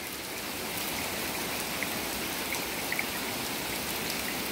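Steady heavy rain falling on a wet wooden deck and the ground beside it, with a few small drips ticking.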